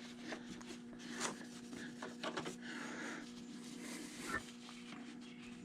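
Rag wiping excess lube off the dirt bike's chain: faint, scattered rubbing with small clicks, over a steady hum.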